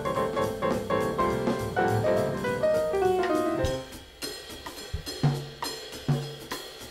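Jazz piano trio playing: piano phrases over the rhythm section, closing with a descending run a little under four seconds in. The drums then carry on alone with scattered tom, bass drum and cymbal strokes.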